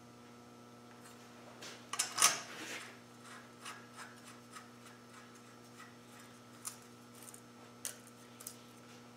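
Hand work on a Land Rover Defender front hub: metal parts clink and rub, loudest in a clatter about two seconds in, followed by scattered light clicks. A steady electrical hum runs underneath.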